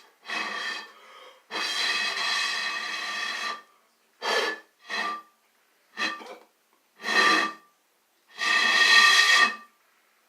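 A person making a meme sound effect with their voice: seven wordless held vocal tones of varied length, the longest about two seconds, separated by short pauses.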